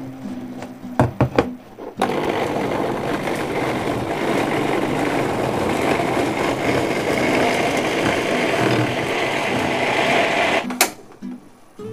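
Electric blender grinding a spice paste of soaked keluak nuts, shallots, garlic and roasted roots in a little water, running steadily for about eight seconds and stopping suddenly near the end. A few knocks come just before the motor starts.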